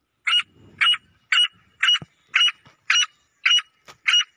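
Female grey francolin (teetar) calling: a steady series of short, loud, evenly spaced notes, about two a second.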